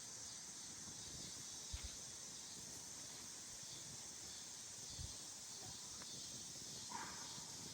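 Steady, high-pitched chorus of crickets or similar insects. Two short, dull thuds come about two seconds in and about five seconds in.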